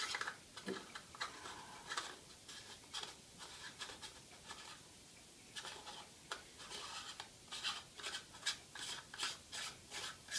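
Faint, irregular scratching and light clicks as a Polaroid close-up filter's metal ring is threaded onto the UV filter on a camera lens, fingers rubbing the lens front; the clicks come thicker in the second half.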